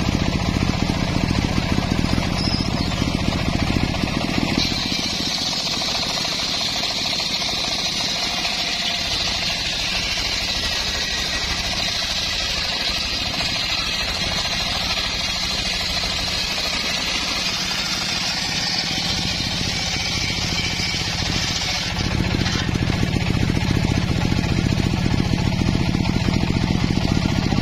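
Engine-driven circular saw bench ripping a teak log. From about four and a half seconds in, a steady high-pitched rasp of the blade cutting rides over the engine, whose low note weakens under the load. At about twenty-two seconds the cut ends and the engine runs freely and louder again.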